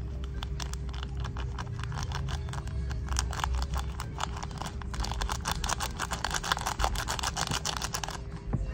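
Foil seasoning sachet crinkling as it is shaken over a paper cup of instant noodles, its powder spilling onto the dry noodles: a rapid string of small crackles that grows denser, then stops shortly before the end.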